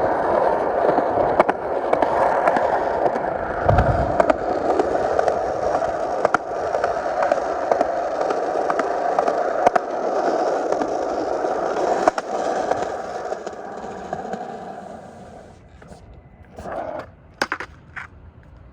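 Skateboard wheels rolling over pavement with a steady rumble and occasional sharp clicks. The rolling fades out about fifteen seconds in, followed by a few sharp knocks.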